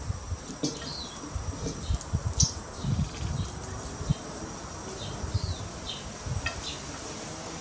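Outdoor ambience: a steady high insect drone with short, falling bird chirps scattered through it, and a few low bumps and knocks, loudest about two to three seconds in.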